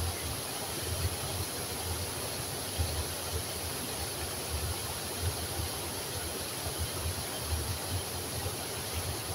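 Steady rush of river water pouring over a low weir and splashing down onto bathers, with uneven low thuds underneath.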